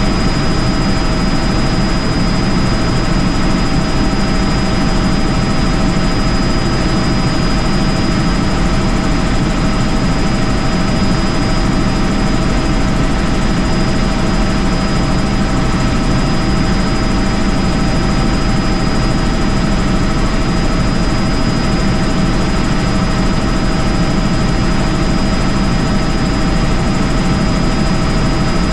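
Helicopter in flight, heard from on board: loud, steady rotor and engine noise with a constant high whine, unchanging throughout.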